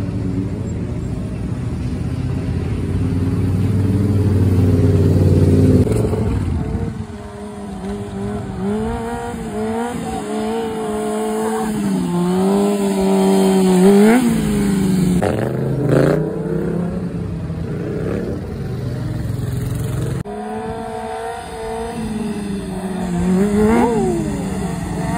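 Motorcycle engines revving as riders wheelie: a low steady drone that grows louder over the first several seconds, then engine pitch rising and falling with the throttle. There are sharp quick revs in the middle and near the end.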